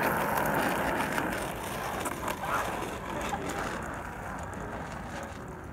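Skateboard wheels rolling on asphalt right past the camera, a steady rolling noise that slowly fades as the board moves away.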